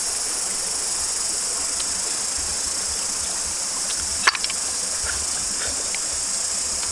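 Steady high-pitched chorus of insects droning, with one sharp click about four seconds in and a few faint ticks.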